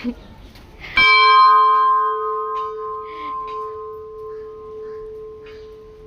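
Hindu temple bell struck once about a second in, then ringing with one clear tone and several higher overtones that slowly fade over the following seconds.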